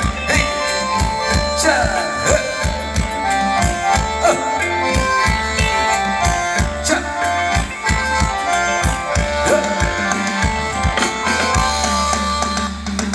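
Live Thai luk thung ramwong band music: a steady drum and bass beat under a melody of held notes, with no singing.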